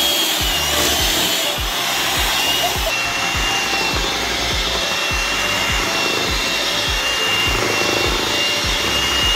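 Hamilton Beach electric hand mixer running steadily with a high whine, its beaters churning cream cheese, sugar and eggs into a cheesecake batter.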